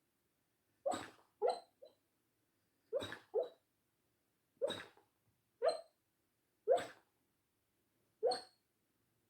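Dog giving about nine short, muffled woofs in its sleep, some in quick pairs, with silent gaps between them.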